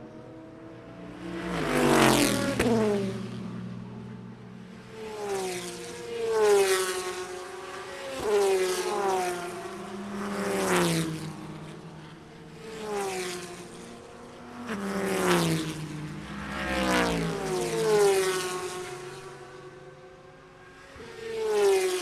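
Racing cars passing one after another at speed, about ten in quick succession. Each engine note swells and drops in pitch as the car goes by.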